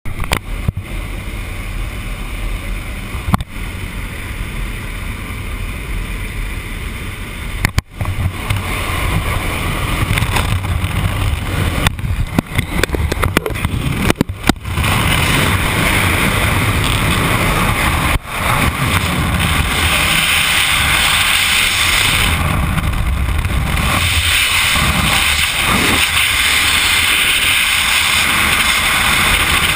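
Jump plane cabin noise: engine and propeller drone with the door open, broken by knocks and clicks. About fifteen seconds in it gives way to a louder, steady rush of freefall wind on the jumper's camera microphone.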